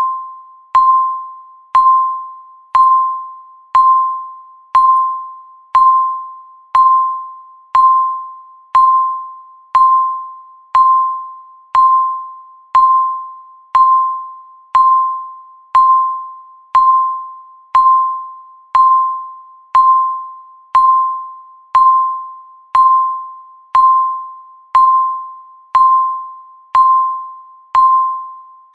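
Countdown timer tick sound: one short, bell-like electronic tone once a second, each starting sharply and fading quickly, in a steady even rhythm.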